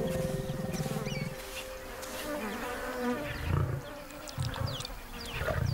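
Lion growling in a low, rasping rumble that stops about a second and a half in, followed by a few short low grunts; small birds chirp near the end.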